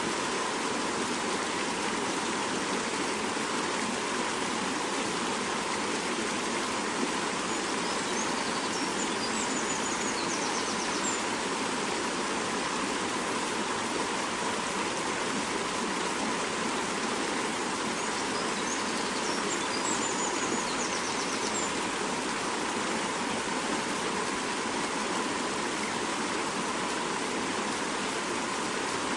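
Fast-flowing mountain river rushing over rocks: a steady, unbroken sound of running water.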